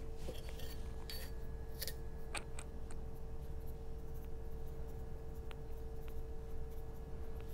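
A few light, scattered clicks and taps from kitchen utensils and containers being handled, heard over a steady low hum and a faint steady tone.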